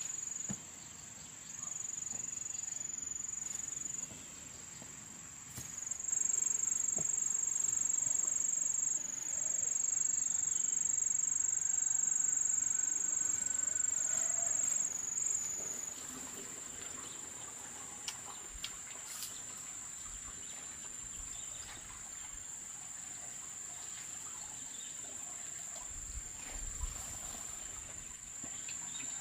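A chorus of insects droning at one steady high pitch, louder for several seconds in the middle.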